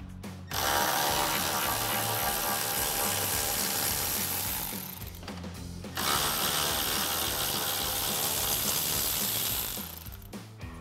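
Milwaukee cordless ratchet running with a 10 mm socket, spinning out the upper grille bolts. It runs in two steady bursts of about four seconds each, with a pause of about a second between them.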